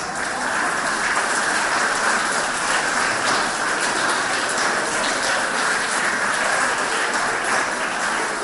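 Group of schoolchildren applauding, a steady run of dense clapping.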